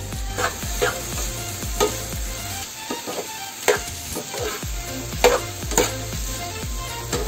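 Metal perforated spatula stirring and scraping food in a frying pan as it sizzles, with sharp clinks of the spatula against the pan every second or so. Background music with a steady beat runs underneath.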